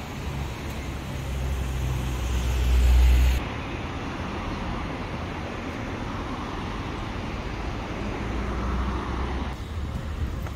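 Road traffic on a town street: cars driving past, the closest and loudest about three seconds in, with its rumble cutting off abruptly just after, and another car swelling past near the end.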